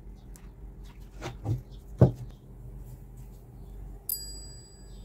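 Workbench handling noises while a stiff card plate is glued to a loudspeaker with hot glue: a few soft clicks, a dull thud, then a single sharp knock about two seconds in as the glue gun is put down. Near the end a sharp click is followed by a thin high ringing that lasts about a second.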